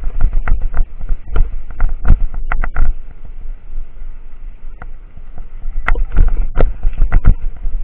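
Wind buffeting the microphone of a bicycle-mounted camera, with rapid knocks and rattles as the bike rolls over a bumpy concrete road. The knocking thins out for a couple of seconds midway, then picks up again.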